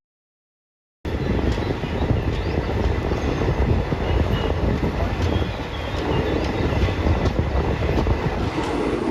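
Express train coaches running on the track, heard from on board: a steady low rumble with faint clicks from the wheels, starting after about a second of silence.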